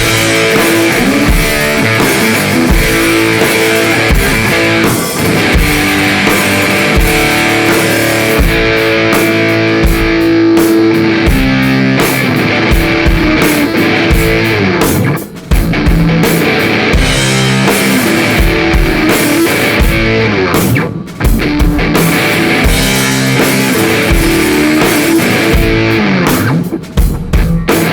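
Rock music with electric guitar and a drum kit keeping a steady beat, with brief breaks about fifteen and twenty-one seconds in.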